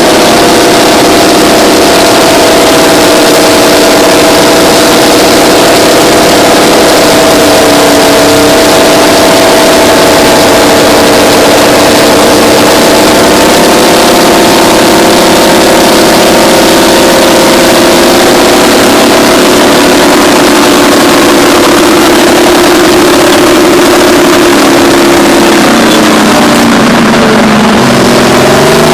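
Twin Detroit Diesel 6-71N two-stroke inline-six engines of a Terex 82-80 bulldozer running hard under load, loud and steady. Near the end the engine pitch drops, then rises again.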